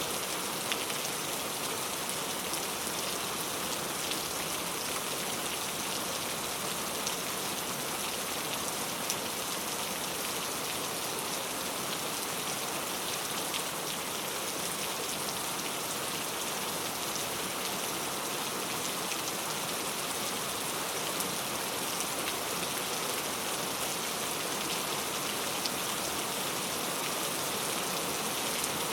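Heavy rain falling steadily, with scattered sharp ticks of individual drops striking close by.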